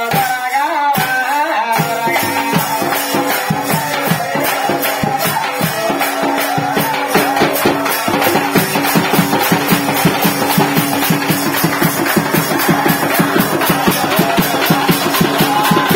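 Folk drum ensemble beating large drums in a fast, dense rhythm. A wavering melodic line is heard for about the first two seconds before the rapid drumming fills everything.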